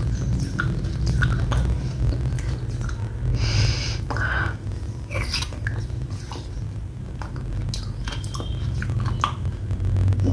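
Close-up mouth sounds of a person chewing a mouthful of wet red clay paste: irregular wet clicks and smacks over a steady low hum.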